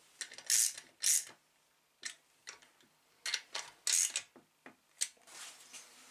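A ratchet driving a bolt into an engine's control bracket: a series of short, separate rasping clicks, the loudest clusters about half a second, one second and four seconds in.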